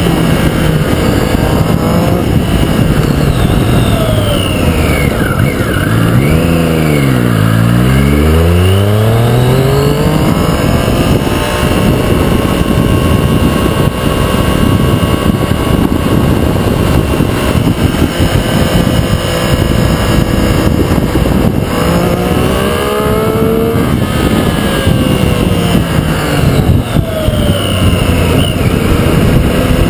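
Triumph Street Triple RX's 675 cc inline-three engine pulling the motorcycle uphill through hairpin bends. The revs drop about six seconds in and climb again, with another rise a little past twenty seconds, over heavy wind and road noise.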